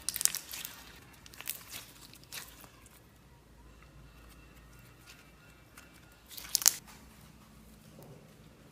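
Slime being squeezed and worked by hand, giving crackling, crinkling bursts. There are several bursts in the first few seconds and the loudest one comes near the end.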